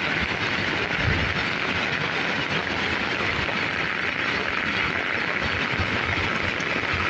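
Steady rain falling, an even hiss with occasional low thuds.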